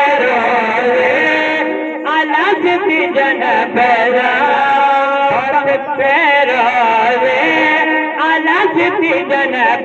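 Male voice chanting a Saraiki qasida in praise of Imam Ali, amplified through a microphone, in long held, wavering notes with short breaks for breath.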